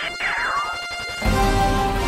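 Recorded marching band show music: swooping rising and falling pitch glides, then about a second in the full band comes in loud with a heavy low end.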